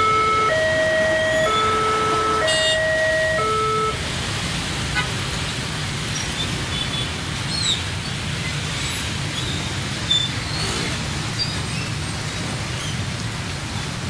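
Railway level-crossing warning alarm: an electronic two-tone signal alternating about once a second that stops about four seconds in. Then the steady running of many motorbike engines and traffic noise as the crossing opens.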